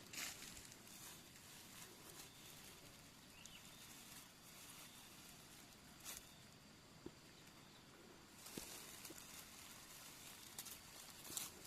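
Quiet forest ambience with a few brief faint rustles and snaps, like leaf litter and twigs being disturbed while foraging for mushrooms.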